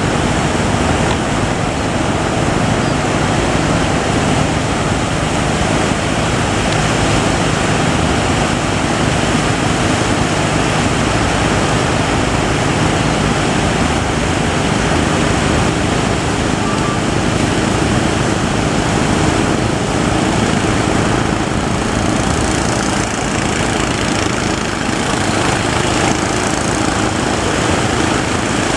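Small fishing boat's engine running steadily under a loud, continuous rush of surf and wind.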